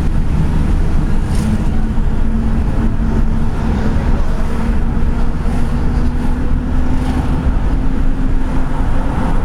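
Engine and road noise from inside a moving car's cabin: a steady low rumble with a constant engine hum.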